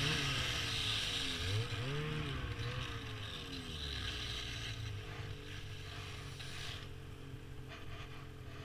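Snowmobile engine running, its pitch rising and falling with the throttle for the first few seconds, then holding steadier as it slowly gets quieter.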